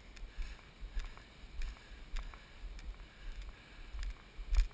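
Running footsteps on grass jolting a body-worn GoPro in its waterproof case: dull thumps about twice a second, each with a light click of the case, the strongest near the end.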